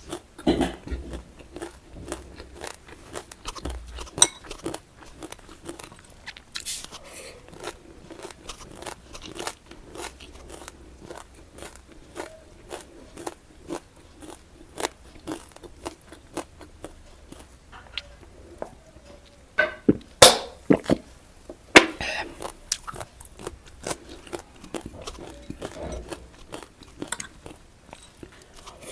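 Close-miked crunching and chewing of crunchy snack food, many small crunches, with a few louder bites about twenty seconds in.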